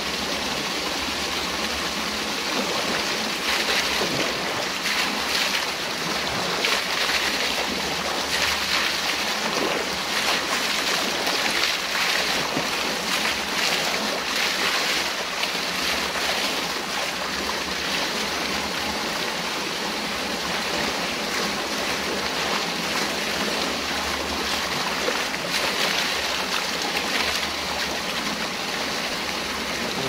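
Water running steadily over and through a small concrete weir, a continuous rushing and trickling.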